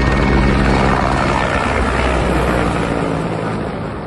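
Military helicopter flying past, its rotor and engine noise loud and steady, then fading as it moves away near the end.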